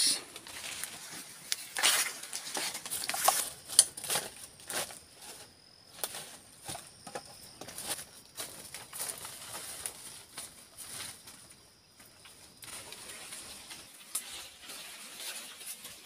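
Footsteps crunching on dry leaf litter and brushing through undergrowth, loudest in the first four seconds and quieter after. A faint steady high-pitched hum runs behind them.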